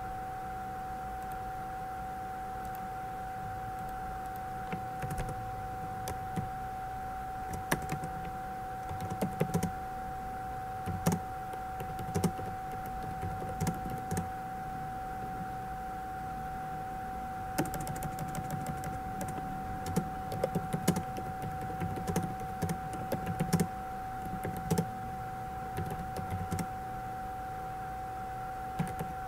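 Computer keyboard keys clicking in irregular runs as text is typed, over a steady background hum.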